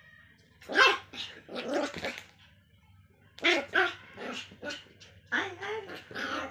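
Small Pomeranian dog barking: short, high barks in three quick bursts, about a dozen in all.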